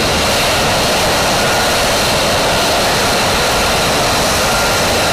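F-35 fighter's F135 turbofan jet engine running at taxi power: a steady, loud jet rush with a thin high whine over it.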